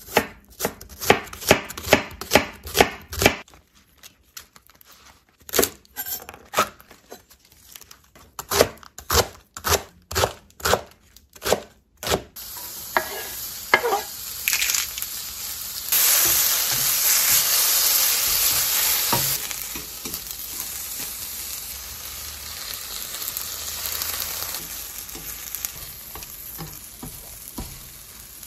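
Chef's knife chopping vegetables on a wooden cutting board in two quick runs of sharp strokes. Then, about twelve seconds in, sliced onion and kale start sizzling in a ceramic-coated frying pan while a spatula stirs them. The sizzle is loudest a few seconds later and then settles to a softer, steady frying sound.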